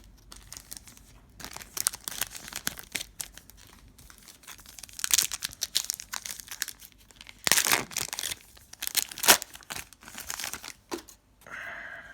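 Foil wrapper of a trading card pack crinkling and being torn open, in irregular rustling bursts that are loudest in the second half.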